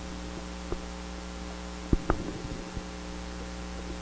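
Steady low electrical hum, as from mains-powered recording gear, with a few faint clicks near the middle.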